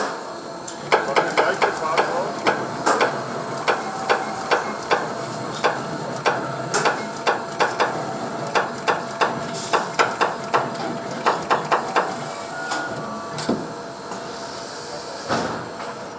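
Automated VIN marking machine stamping the vehicle identification number into the steel floor tunnel of a Porsche 911 body: a long run of sharp metallic taps, about three a second, which stops shortly before the end.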